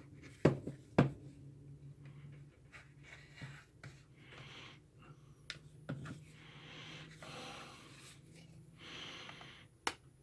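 Thin metal pry tool working into the seam of a clipped-together plastic device housing, with sharp clicks and snaps as the plastic catches give, the loudest about half a second and one second in, and scraping between.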